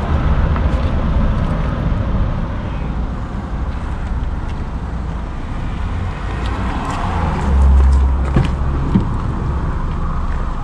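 Road traffic on a highway running close by: a steady rumble of passing cars, with one vehicle going past louder about seven to eight seconds in. A couple of short knocks follow near the end.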